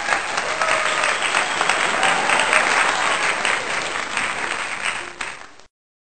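Applause sound effect: a crowd clapping, starting and stopping abruptly over otherwise silent audio.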